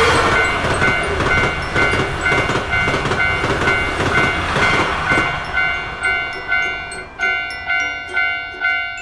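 Japanese railroad crossing bell ringing its repeated "kan-kan" at about two strikes a second while a train passes. The train's rumble and rail noise are loudest for the first five seconds and then fade, leaving the bell ringing on its own.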